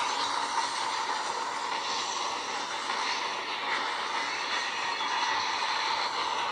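Train running on rails, a steady rushing noise with no separate impacts.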